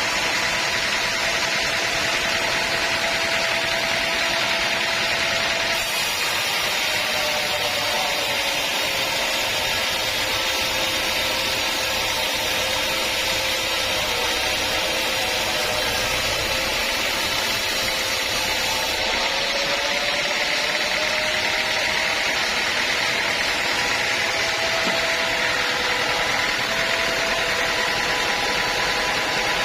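Sawmill running steadily, sawing through a teak log: from about six seconds in the machine's pitch sags and a high hiss from the blade joins it, then the pitch comes back up near nineteen seconds as the cut eases.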